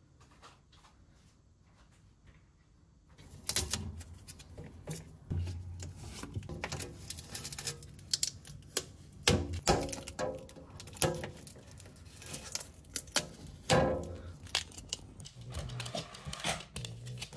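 Household handling noise: a busy run of clicks, knocks and clinks, starting about three seconds in, from things being moved about in a kitchen and a refrigerator.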